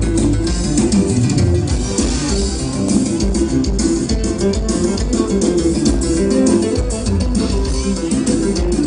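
Loud Latin American dance music with guitar and bass guitar playing an instrumental stretch over a steady beat, without singing.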